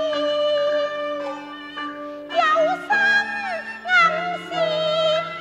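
Cantonese opera ensemble music: a melody line of held notes that waver and slide in pitch, over steady accompaniment.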